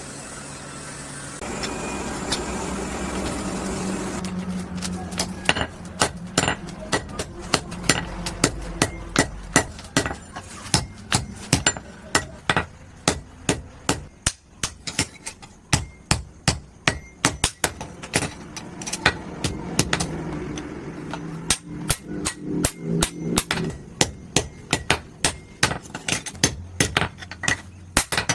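Blacksmith's hammer striking steel on an anvil while forging a froe: a long, steady run of blows, about two a second. A low steady hum comes before the blows, about the first four seconds.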